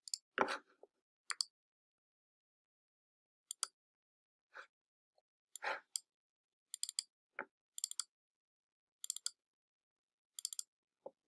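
Faint computer mouse clicks, several in quick pairs like double-clicks, scattered among stretches of silence as folders are opened in a file browser.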